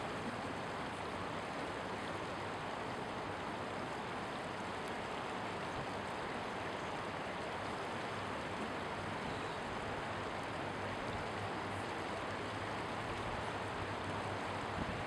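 Steady rushing of river rapids, an even hiss that does not change.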